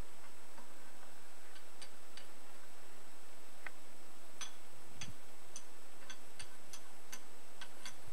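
A series of short, sharp ticks, irregularly spaced and coming more often in the second half, over steady hiss and a thin high whine.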